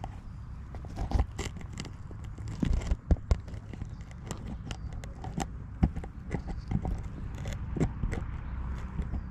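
Footsteps walking on a woodland path, leaves and twigs crunching and crackling underfoot in an irregular pace, with a few harder steps about a third of the way in.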